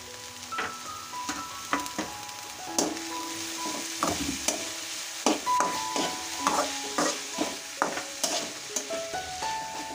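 Metal spatula scraping and knocking against a metal kadhai while cabbage, peas and other vegetables are stir-fried in oil, over a steady sizzle. The strokes come irregularly, about one or two a second.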